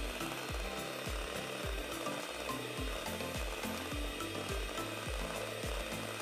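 Electric hand mixer running, its twin beaters whirring and rattling against a stainless steel bowl as they whip egg whites into a meringue foam. Background music with a steady beat plays underneath.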